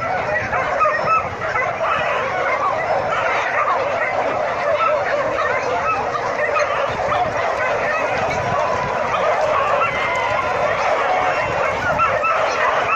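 A pack of dogs yelping and whining all together, a dense, unbroken chorus of short high calls.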